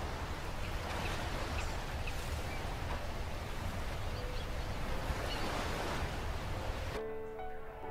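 Steady seaside ambience of wind and surf with a low rumble and a few faint chirps. About seven seconds in it cuts off abruptly and music begins.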